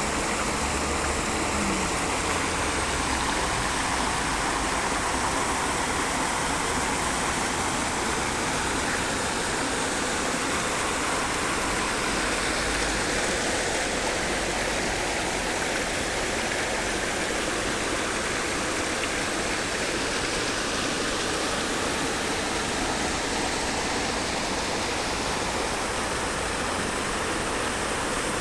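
Rain falling steadily, a dense, even hiss of water that does not change.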